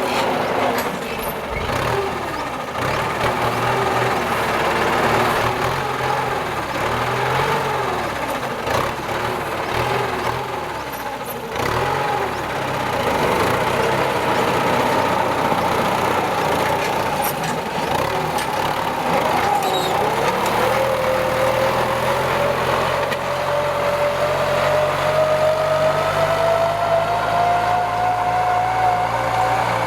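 Kubota M9540 tractor's diesel engine running under ploughing load, its pitch wavering up and down for about twenty seconds, then rising steadily over the last ten seconds.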